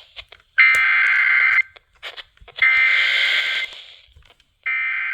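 Emergency Alert System SAME header: three one-second bursts of two-tone digital data, about a second apart, which open a new alert, here a severe thunderstorm warning.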